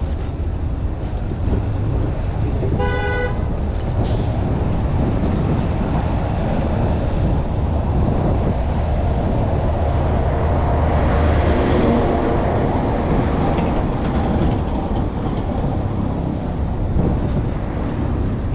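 Steady city traffic and road rumble heard while riding a bicycle in the street, with one short car horn honk about three seconds in.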